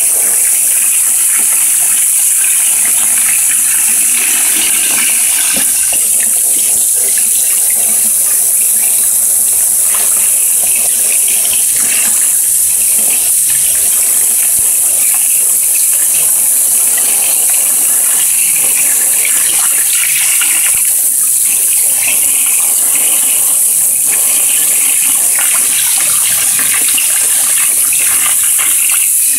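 Garden hose spray nozzle jetting water into a plastic bin, splashing onto a submerged wire-mesh cage and the water surface: a steady, loud hissing rush of water.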